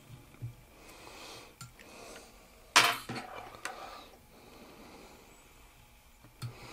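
Light clicks and clinks of small metal fly-tying tools, a whip-finisher and scissors, being handled at the vise, with one sharp clink, the loudest, about three seconds in.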